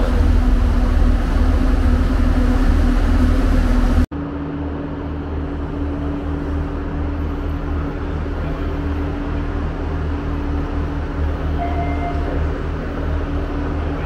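Steady low rumble and hum of a train running at the station. An abrupt cut about four seconds in drops it to a somewhat quieter steady hum.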